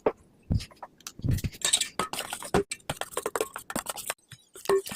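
Glue slime being mixed in a bowl as borax activator is worked in: irregular wet squelches, clicks and crackles.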